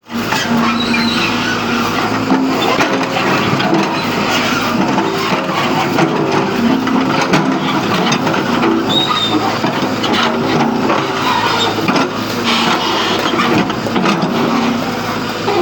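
Heavy diesel earthmoving machinery running steadily under load while digging and stripping earth, with scattered knocks and clanks.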